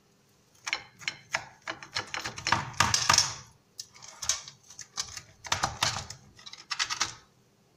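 Metal cake server and knife scraping and clicking against a metal baking tray while cutting and lifting crisp baked kunafa, in several bursts of rapid clicks with short pauses between.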